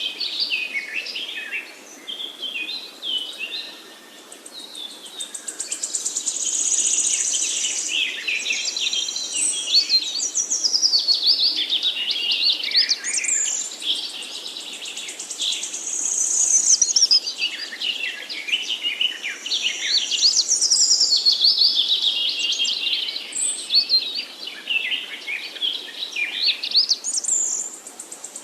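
Several forest songbirds singing at once, with overlapping whistled phrases, chirps and rapid high trills, and a faint background hiss beneath.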